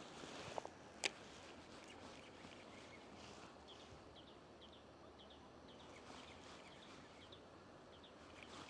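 Near silence: a faint steady hiss with soft, evenly repeated high chirps of autumn insects, about two or three a second, starting a few seconds in. Two sharp clicks come about a second in.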